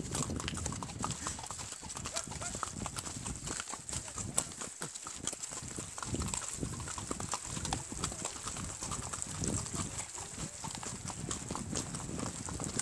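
Hooves of a ridden horse clip-clopping, a run of uneven knocks and thuds, heard from the saddle.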